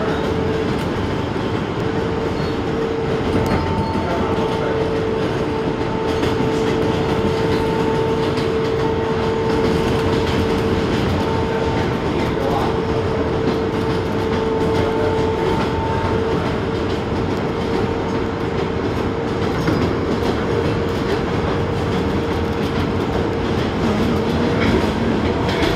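New York City Subway 7 express train running at speed, heard from inside the car: a steady rumble of wheels on rail, with a steady high whine over it that stops near the end.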